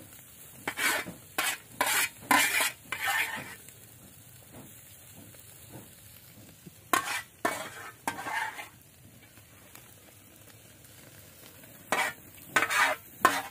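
Metal utensils scraping and clinking against a wire grill rack while whole fish are turned over charcoal, in three clusters of short strokes. The fish sizzle on the grill underneath.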